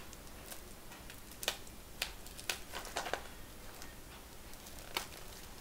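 Fingers and fingernails picking and scratching at the plastic shrink-wrap on a Blu-ray case, making scattered small clicks and taps at irregular moments.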